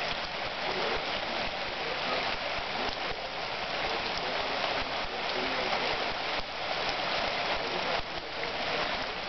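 Steady rain falling on wet concrete, an even hiss of drops.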